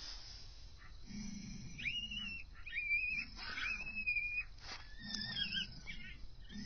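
A series of high-pitched, whistle-like whining animal calls, each under a second, beginning about two seconds in. Near the end comes a lower, two-toned falling whine.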